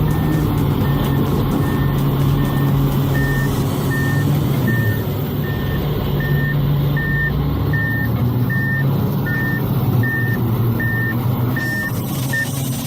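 A heavy machine's reversing alarm beeping at an even pace, a little faster than once a second, over its engine running steadily. The beeps stop near the end.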